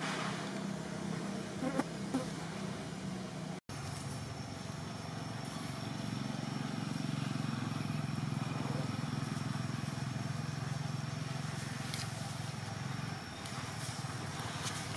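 Steady outdoor background hum with a thin, steady high insect tone over it; the sound drops out for an instant about four seconds in.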